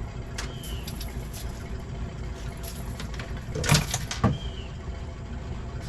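Boat motor running steadily, with two loud knocks a little over halfway through and a few fainter clicks.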